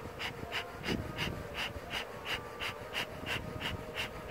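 Bellows of a beekeeper's bee smoker being pumped, puffing air in a steady rhythm of about three puffs a second to fan the freshly lit fuel into smoke.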